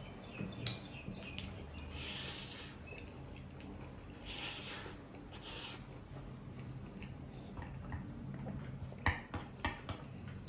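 Noodles slurped and chewed close to the microphone: a few breathy slurps in the first half, then wet chewing with sharp smacking clicks near the end.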